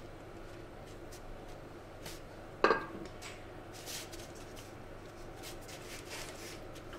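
Faint rustling of paper and crisp snow peas being laid out by hand on a sheet of baking paper, with a few soft taps. One short, louder sound comes a little under three seconds in.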